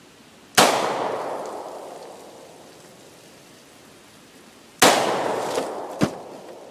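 Two gunshots from a Ruger LCR .38 Special revolver about four seconds apart, each followed by a long echo that dies away over a second or two. A shorter sharp crack comes about a second after the second shot.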